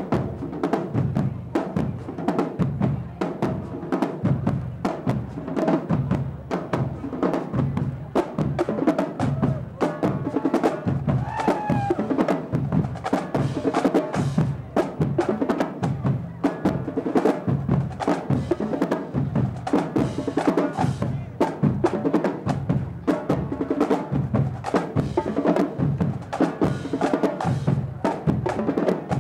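Marching band drumline playing a fast, steady cadence: snare drums over low bass-drum strokes.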